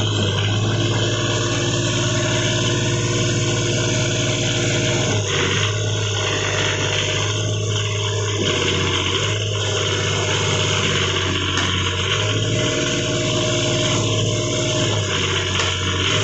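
Komatsu PC40UU mini excavator's diesel engine running steadily, its note changing every few seconds.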